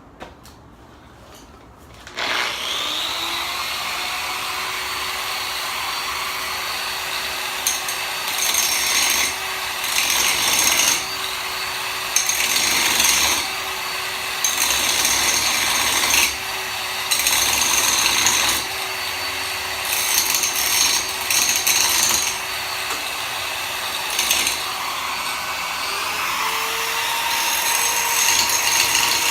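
A power tool starts about two seconds in and runs steadily, with repeated louder stretches of a second or two, as the winch's welded-up mounting bolts are cut free.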